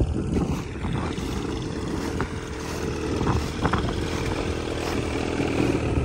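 Snowmobile engine running steadily under way, with a few short knocks as it rides over the ice.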